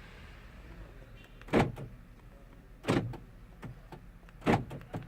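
Three sharp mechanical clunks, roughly a second and a half apart, each followed by a lighter click, from a Ford Edge that will not start.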